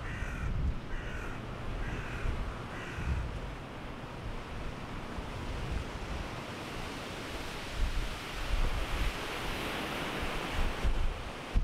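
Surf washing on the shore, with wind rumbling on the microphone. In the first few seconds a bird calls four times, about a second apart. The surf swells near the end.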